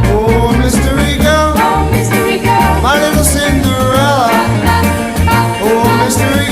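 A 1957 rock and roll record playing, apparently a break between sung verses: a lead melody line with sliding notes over a steady bass-and-drum beat.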